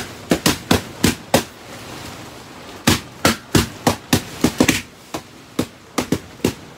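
Balloons popping inside a van, one sharp bang after another: a quick run of pops, a pause of about a second and a half, then a faster run with pops close together, thinning to scattered pops near the end.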